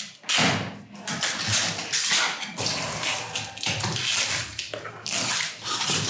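Rustling and scraping of cardboard and plastic in irregular bursts as a washing machine's shipping carton is unpacked: the packing strap is cut with a box cutter and the box flaps are opened.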